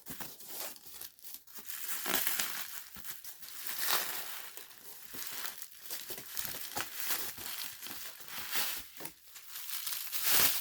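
Packaging being handled by hand while a shipping box is unpacked: irregular crinkling and rustling with some tearing, louder in flurries.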